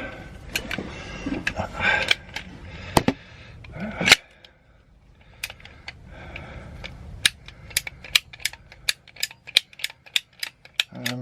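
Ratcheting pipe cutter being adjusted: a few knocks and clatter of handling, then a run of quick, even ratchet clicks, about three or four a second, through the second half.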